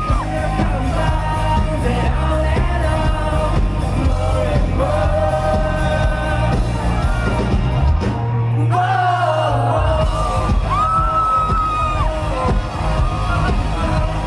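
Live pop-rock band performing with singing, recorded from the audience. About eight seconds in, the band thins out for a moment to a single held bass note, then comes back in with the vocal.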